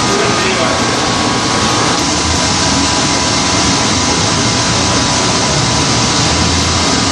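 Fan test rig running steadily, its motor-driven fan blowing air out through the discharge duct: an even rush of air with a faint, steady high whine.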